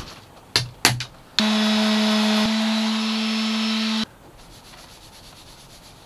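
A small electric power tool's motor runs with a steady hum and hiss for about two and a half seconds. It clicks and drops slightly in level midway, then cuts off suddenly. Afterwards a rag rubs faintly on wood as oil is wiped onto mahogany planks, and two light knocks come about a second in.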